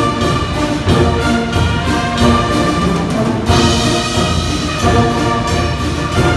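Brass band playing a tune, several horns sounding together in harmony over a steady beat.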